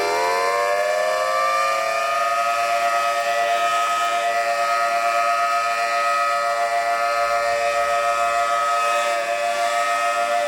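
Outdoor warning sirens, a Federal Signal 3T22 and a Thunderbolt, finishing their wind-up in the first couple of seconds and then holding a steady chord of several tones. The loudness wavers regularly.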